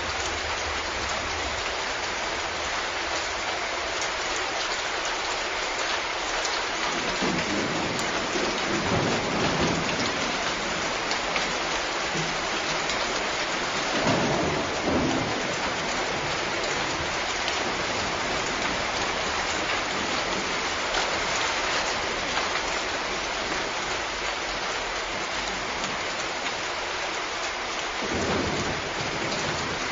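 Steady rain falling, with low rumbles of thunder swelling up about a quarter of the way in, around halfway, and again near the end.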